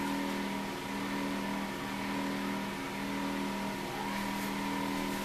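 Steady machine hum made up of several constant low and mid tones, running evenly with no breaks.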